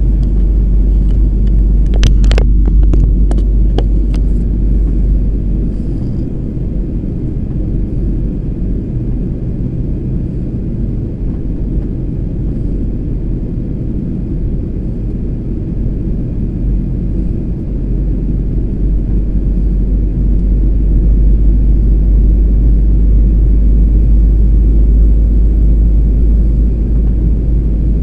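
Steady low rumble inside the cabin of a Garuda Indonesia Boeing 737 jet airliner during its descent: engine and airflow noise heard from a window seat, growing a little louder in the second half. A few sharp clicks sound about two to four seconds in.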